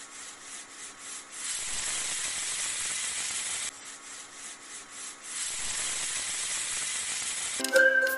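Sizzling hiss sound effect, looped twice. Each pass is fainter for about a second and a half, then louder for about two seconds. A whistled tune with backing music comes in just before the end.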